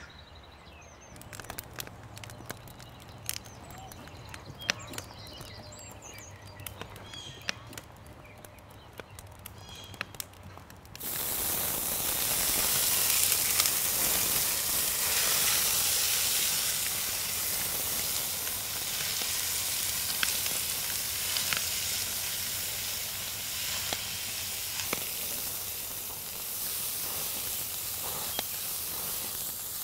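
Faint crackling, then about eleven seconds in a loud, steady sizzle starts suddenly as chicken hearts fry in hot olive oil in a cast-iron pan over an open fire, with scattered pops through it.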